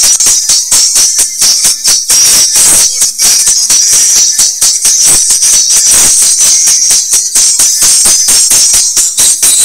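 A song played very loud through an Audio Pipe ATR-4061 tweeter behind a frequency cut. Only the bright top end comes through: hissy cymbal and shaker-like percussion in a fast, dense rhythm, with little bass.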